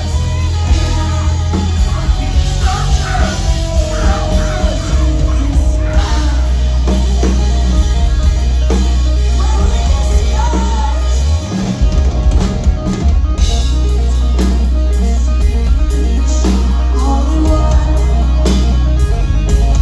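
Post-hardcore band playing live: loud drums, distorted guitars, heavy bass and sung vocals. The low end drops out briefly about halfway through, then the full band comes back in.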